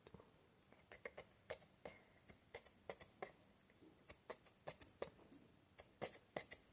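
Close-miked ASMR mouth sounds: quick, irregular tongue clicks and lip smacks, several a second, with a few louder ones near the end.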